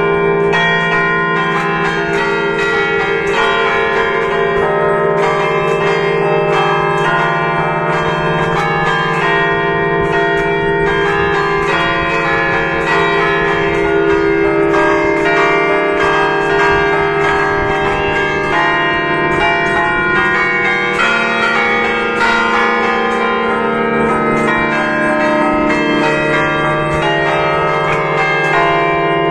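Five church bells tuned in E-flat major, the largest on E♭3, cast by Giorgio Pruneri in 1910, played by hand from a wooden baton keyboard. Their clappers strike in a quick, continuous festive melody, an allegrezza, with the strikes overlapping into a dense, sustained ringing.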